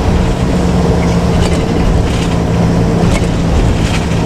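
Bus on the move: its diesel engine drones at a steady pitch under road noise, with a few short rattles.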